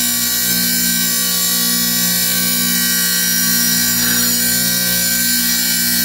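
Wet tile saw running at a steady speed, a constant motor hum with a high whine over it.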